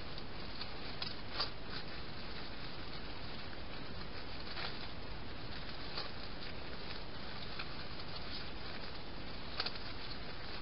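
Steady hiss from a trail camera's microphone, with a few faint scattered ticks and rustles from young hedgehogs foraging on the ground.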